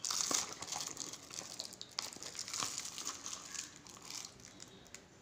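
Crinkling and rustling of plastic packaging being handled, with a few light clicks, dying away over the last second or so.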